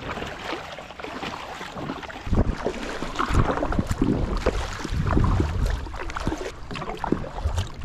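Double-bladed kayak paddle dipping and splashing in the sea as a sit-on-top kayak is paddled along, with irregular splashes and knocks. A low rumble comes in about two seconds in.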